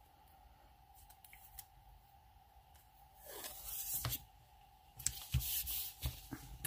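Washi tape roll being handled: rustling and tearing as its end is peeled back or its wrapping is pulled off, in two spells about three and five seconds in, with a few light clicks. A faint steady hum runs under it.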